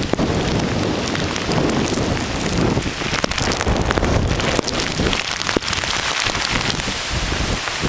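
Heavy hurricane rain and gusting wind, a dense rushing hiss that swells and dips unevenly, with the wind buffeting the microphone and scattered sharp ticks of drops hitting it.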